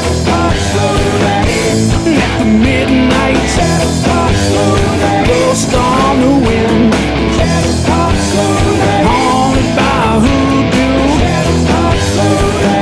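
Rock song with a sung vocal over electric guitar and drums.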